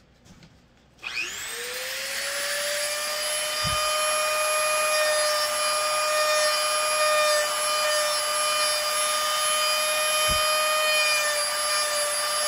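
Corded handheld rotary tool spinning up about a second in and then running steadily at high speed, its bit working the muzzle end of a kydex holster.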